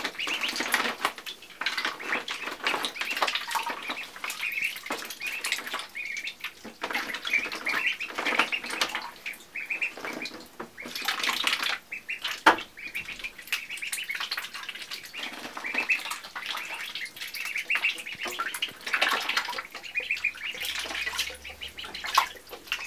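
Two-week-old ducklings peeping in short repeated chirps while splashing and dabbling in bathtub water as they feed on mealworms. One sharp knock comes about twelve seconds in.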